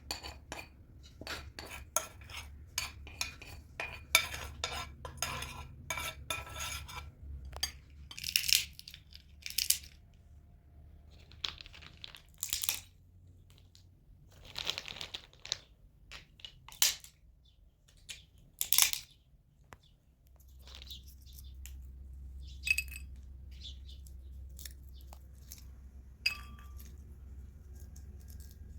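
Kitchen dishes and utensils clinking and knocking, busiest in the first seven seconds. It thins to a few longer scraping sounds and occasional clicks over a low steady hum.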